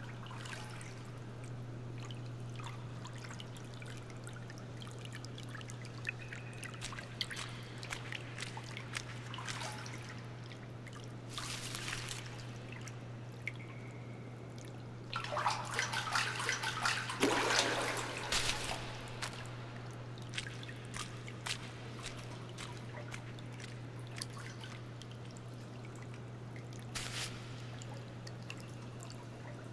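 Public-bath ambience: water dripping and trickling over a steady low hum, with scattered small drips and a louder stretch of noisy splashing for a few seconds just past the middle.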